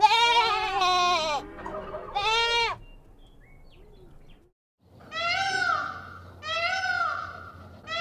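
Goats bleating: a few loud, wavering bleats in the first three seconds, two of them overlapping at the start. From about five seconds in, a different animal call takes over, a short rising-and-falling wail repeated about every second and a half.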